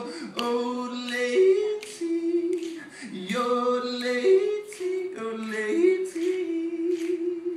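A man yodeling, holding notes and flipping abruptly between low chest voice and high falsetto, with sharp finger snaps keeping time.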